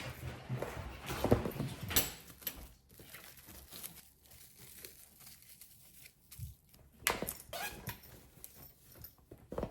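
Irregular rustling and crinkling with a few sharp light knocks, as of things being handled; loudest about a second in and again around seven seconds in.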